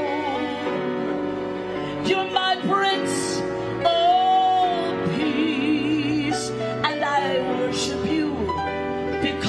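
A woman singing a worship song into a microphone over instrumental backing, with long held notes and a wide vibrato about halfway through.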